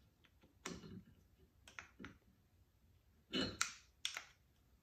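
A few small metallic clicks and ticks as needle-nose pliers work on the plates of a 1970 Camaro Z28 Hurst shifter body. The sharpest click comes about three and a half seconds in.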